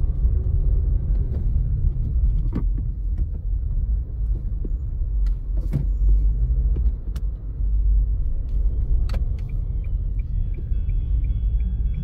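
Steady low road rumble of a car, heard from inside the cabin while driving, with a few light clicks.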